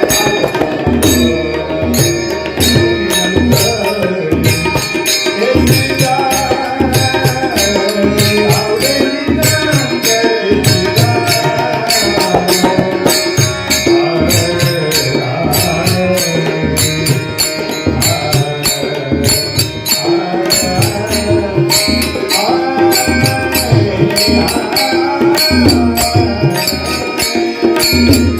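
Marathi Warkari devotional tune (chal) sung with tabla accompaniment, with sharp strikes keeping a steady rhythm throughout.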